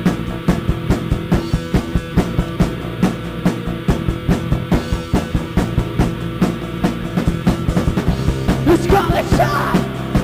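Rock band playing an instrumental passage, with a drum kit keeping a fast, steady beat over sustained low notes. A wavering pitched line comes in near the end.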